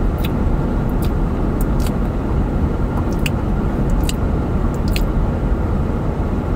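Steady low rumble of a car heard from inside its cabin, with a few light clicks scattered through it.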